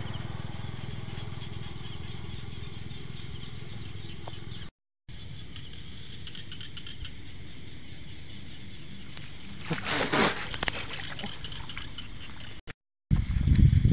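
Night-time insect chorus: a thin steady high whine with a rapid pulsing chirp, about six pulses a second, through the middle. A brief rustle of brush comes about ten seconds in, and louder rustling of dry brush and grass near the end. The sound cuts out to silence twice, briefly.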